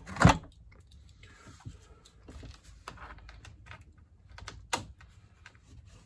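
Scattered light clicks and taps of hand tools and tubing being handled, with one sharper knock just after the start and another near the five-second mark.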